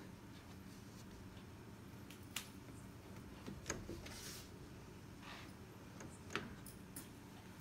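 Plastic panels and round connectors of a stackable cube organiser being handled: three sharp clicks spread through, with soft brushing sounds between them, over a low room hum.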